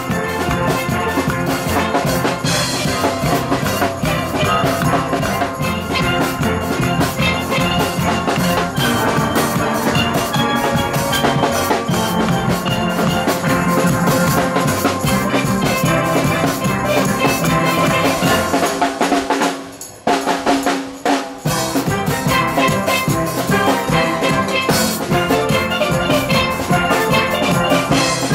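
A steel band playing steelpans: many pans struck with mallets ring out together in a busy melody over a drum beat. The music dips briefly about two-thirds of the way through, then comes back.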